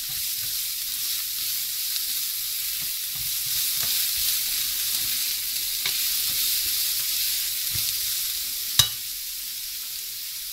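Chopped vegetables sizzling in hot oil in a frying pan while a spatula stirs and scrapes them, with light clicks against the pan. A little before the end comes one sharp knock, then the sizzling goes on without the stirring.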